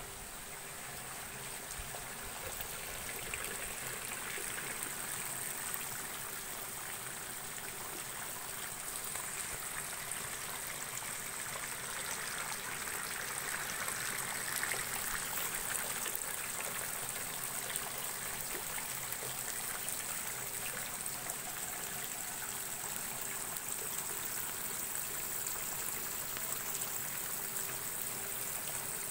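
Nutrient water trickling and splashing steadily out of the ends of hydroponic lettuce channels into a collection gutter, a little louder near the middle.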